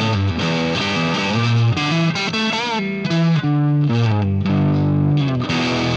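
Vintage V62AB Telecaster-style electric guitar playing a line of picked notes, with a wavering, bent note a few seconds in.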